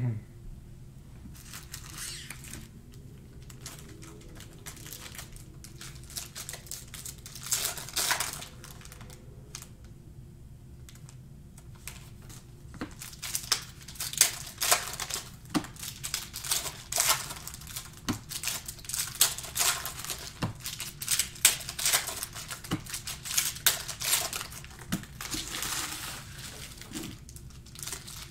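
Foil trading-card pack wrappers crinkling and tearing as packs are handled and torn open, sparse at first and becoming busy, louder crackling from about halfway through.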